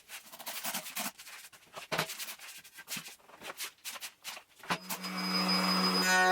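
Irregular scraping or rubbing strokes, several a second, stop-and-start. About three-quarters of the way through they give way to background music with a held low note.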